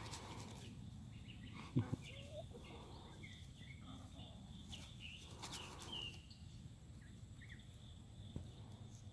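Quiet rural yard ambience: a low steady background rumble with scattered faint bird chirps, and a brief knock about two seconds in.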